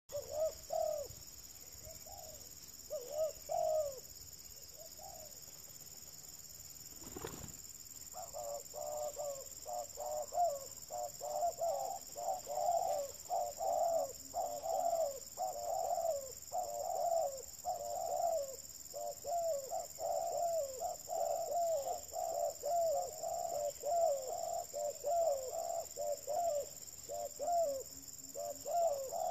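Doves cooing: a few scattered calls at first, then from about eight seconds in a near-continuous run of repeated cooing phrases. A single sharp thump sounds about seven seconds in.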